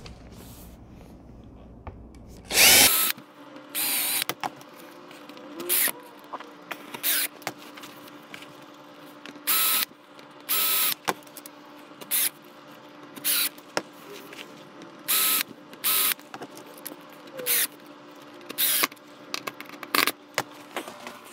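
Cordless drill pre-drilling pilot holes up through the underside of a float frame, run in many short trigger bursts of about half a second each. The first burst, about three seconds in, is the loudest.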